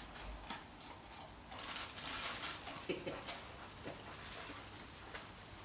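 Torn Christmas wrapping paper crinkling and rustling as a golden retriever carries it in its mouth, with scattered light clicks and scuffs. The rustling is busiest in the middle.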